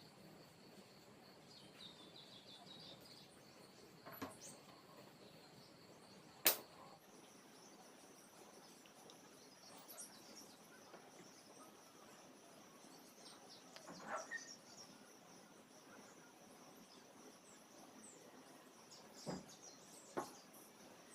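Near silence with a faint high steady whine and a few scattered clicks, the sharpest about six and a half seconds in.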